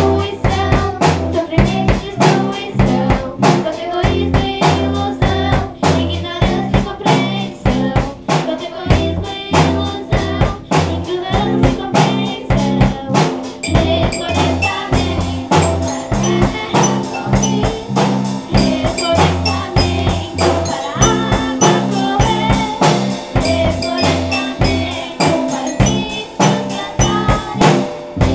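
Band playing an instrumental passage: a drum kit keeps a steady beat under a bass line and sustained pitched instruments, with no singing.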